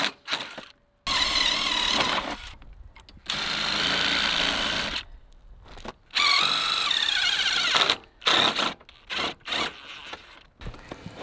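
Power drill drilling out the rivets that hold the spring assembly in an RV awning roller tube: three runs of a couple of seconds each with a steady motor whine, then a few short clicks and knocks near the end.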